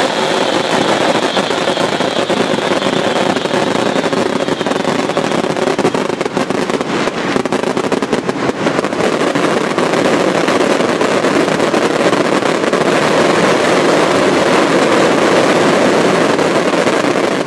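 Daylight fireworks: a dense, unbroken barrage of firecracker and shell bangs, so rapid that they merge into one loud, continuous crackle.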